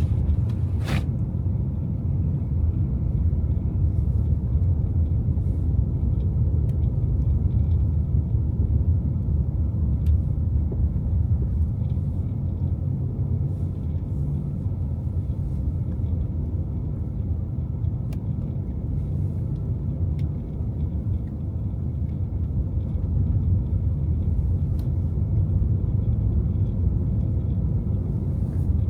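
Steady low rumble of a car driving along city streets: engine and tyre road noise, with a few faint ticks.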